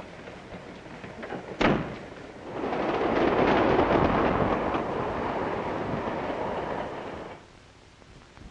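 A single sharp knock, then a passenger train running past: a loud, steady rushing noise for about five seconds that cuts off suddenly.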